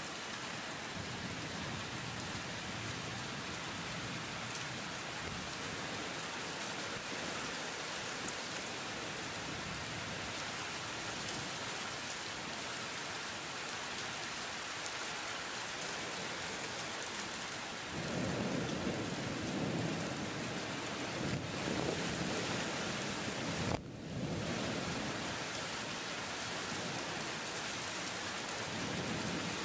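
Heavy rain falling steadily through a thunderstorm. Low thunder rumbles for several seconds from a little past halfway and again near the end, with a brief break in the sound in between.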